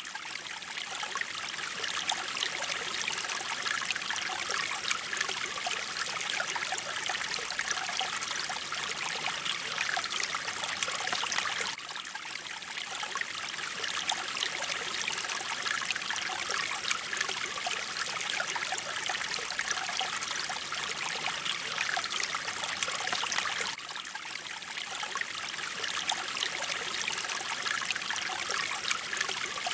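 Flowing mountain stream: running water trickling and splashing steadily, brightest in the higher tones. The level dips briefly about twelve seconds in and again about twenty-four seconds in.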